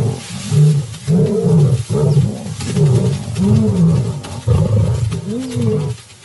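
Lions growling and snarling at each other in a quick series of short, rough growls, about one a second, that stops just before the end. It is the sound of an aggressive stand-off between a lioness and an intruding male.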